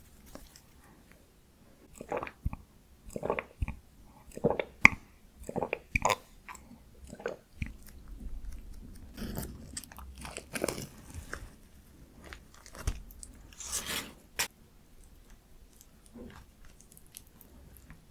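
Close-miked eating of Korean steamed buns (hoppang): bites and chewing in irregular bursts, busiest through the first three quarters and sparser near the end.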